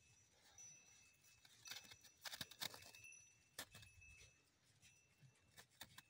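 Faint, irregular crisp crunching as a Kangal-type shepherd dog roots its muzzle into crusted snow under a bush, the crunches clustered about two seconds in with one more a little later.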